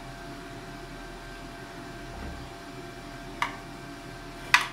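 Metal serving spoon clinking twice against a frying pan while scooping out potato curry, the second clink louder, over a steady background hum.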